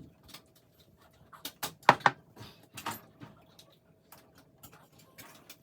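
A spoon clinking and scraping against small baking dishes as pot pie filling is scooped in: scattered short taps, with a brief squeak about two seconds in, over a faint steady hum.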